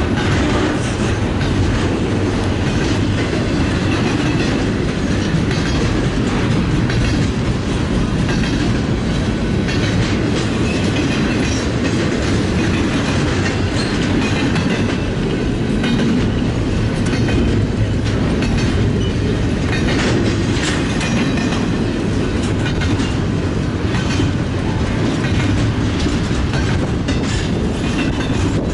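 A BNSF freight train rolls past, its wheels clicking steadily over the rail joints under a continuous rumble.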